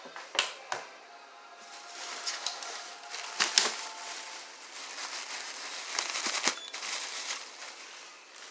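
Handling noises: crinkling and rustling, with several sharp clicks and knocks scattered through it.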